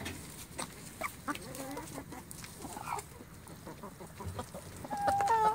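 A mixed flock of hens, Light Sussex among them, clucking softly while they feed, with light taps of beaks pecking at mash on a stone. About five seconds in one hen gives a louder, drawn-out call.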